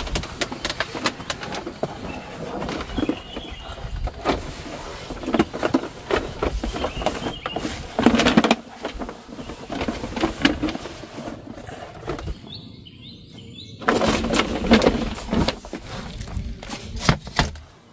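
Irregular knocking and clattering of hands-on work, loudest in bursts around 8 s and 14 to 15 s, with a bird chirping a few times in a short quiet gap about two-thirds of the way through.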